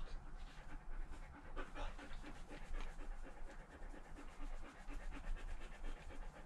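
A dog panting quickly and steadily close by.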